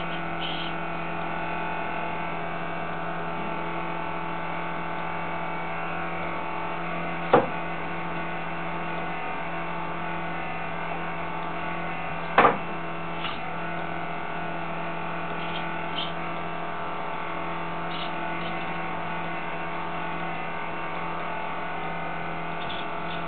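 Steady electrical hum of several even tones from a hobby-servo robot arm and the old 400 W computer power supply that feeds its servos, with two sharp clacks about seven and twelve and a half seconds in and a few faint ticks.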